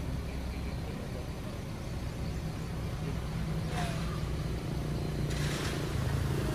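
A steady, low, engine-like rumble, with two brief rustling noises about four and five and a half seconds in.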